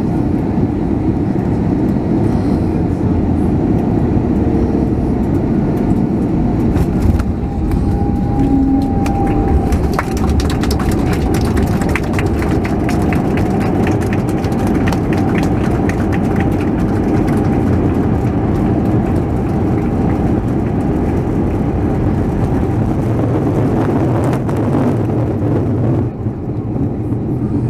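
Cabin noise of an Airbus A321neo with Pratt & Whitney geared turbofan engines landing and rolling out on the runway. A loud, steady engine and rolling rumble, with a jolt about seven seconds in, then a steady whine and a rattle of fast clicks through the middle of the rollout. It eases off near the end as the aircraft slows.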